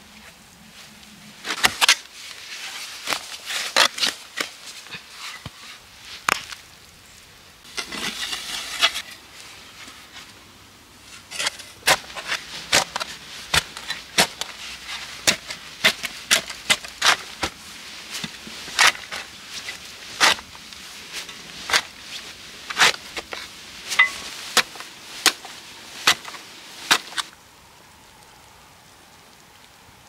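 Short-handled steel spade digging into earth: a run of sharp, irregular strikes of the blade, with a longer scraping stretch about eight seconds in. The strikes stop a few seconds before the end, leaving a quiet steady hiss.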